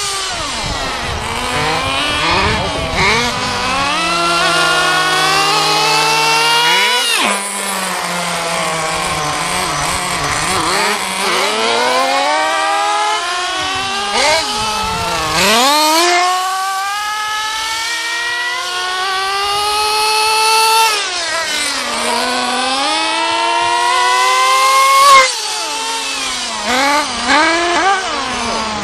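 Nitro engines of RC racing buggies, more than one at a time, revving up and down with the throttle. Each time a car passes close, its high pitch drops sharply and it gets louder, about three times.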